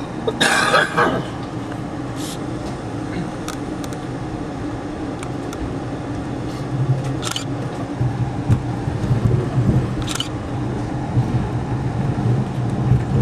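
Passenger train heard from aboard a coach as it pulls out of a station: a steady rumble, with a low diesel drone from the EMD GP38-2 locomotive that grows stronger from about seven seconds in. A brief voice near the start and a couple of sharp clicks.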